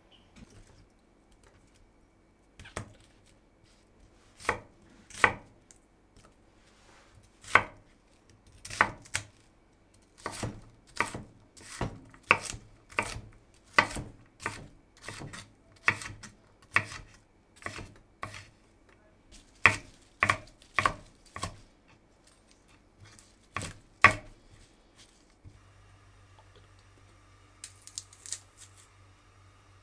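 Knife chopping food on a cutting board in uneven strokes, up to about two a second. The chopping stops a few seconds before the end and a steady low hum follows.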